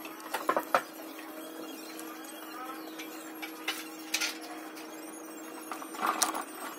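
Enamelled copper magnet wire being worked by hand into the slots of an electric motor stator during rewinding: short clicks and scratchy rustles as the turns catch and slide against the stator, a cluster near the start and another near the end, over a steady hum.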